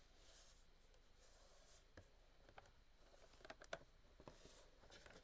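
Faint handling of a Funko Pop's cardboard window box: soft rustles and a few light clicks and taps, with a small cluster of taps about three and a half seconds in.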